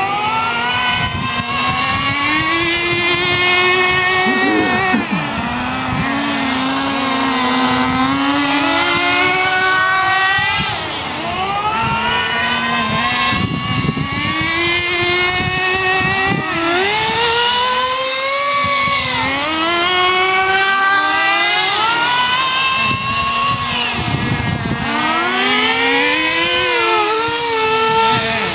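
Nitro RC car engines buzzing as the cars race, the pitch climbing as they accelerate and dropping as they let off, over and over.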